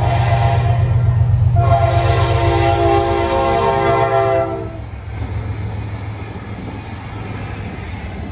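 Diesel-electric locomotive horn sounding for about four and a half seconds, getting louder and changing note about a second and a half in, over a heavy low engine drone from the Wabtec ES30ACi locomotives. The drone carries on after the horn cuts off.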